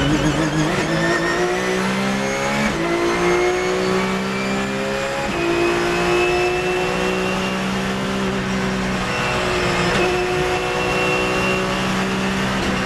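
Porsche Cup race car's flat-six engine at full throttle, heard from inside the cockpit, pulling up through the gears: the pitch climbs, drops at upshifts about three and five seconds in, then holds at high revs as the car nears top speed.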